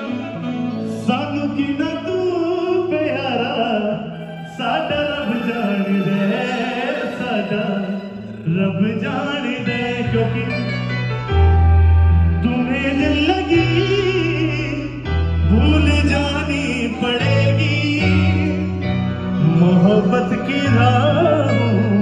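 A male singer singing long, drawn-out melodic phrases through a PA system, with live band accompaniment; deep bass notes come in strongly about ten seconds in.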